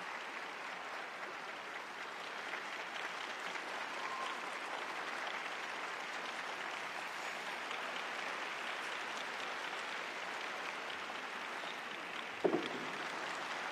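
Arena crowd applauding steadily, an even patter of clapping. Near the end, a single short pitched call rises briefly above the clapping.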